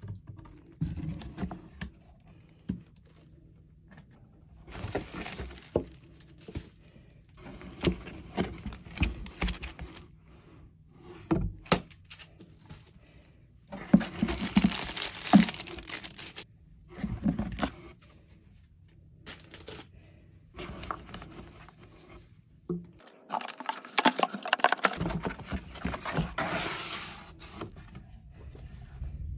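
Packaging being handled and unpacked by hand: irregular rustling and scraping with a few sharp knocks, loudest about fourteen seconds in and again from about twenty-three seconds in.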